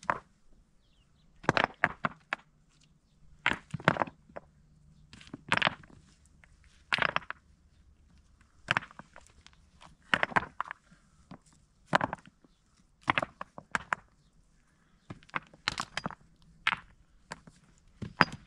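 Rocks and gravel clattering as they are picked up by hand and tossed onto stony ground, a sharp clatter every second or two.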